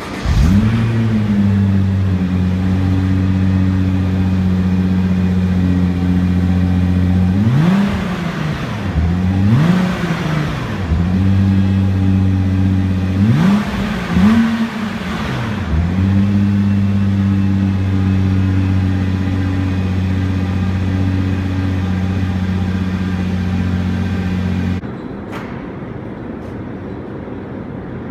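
2013 Nissan GT-R's twin-turbo 3.8-litre V6 starting and settling into a steady idle. It is revved in two pairs of quick throttle blips, returns to idle, and is shut off about three seconds before the end.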